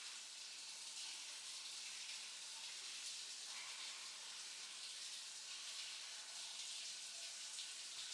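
Faint, steady hiss of background noise, even throughout.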